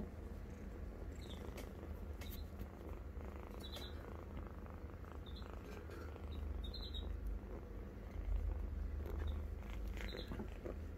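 Young tabby kitten purring while being stroked, a steady low rumble that grows a little stronger past the middle.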